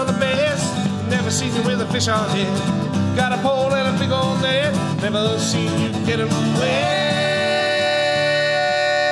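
Acoustic guitars strummed under several men singing a song together. A little before the end the voices hold one long note in harmony over the guitars.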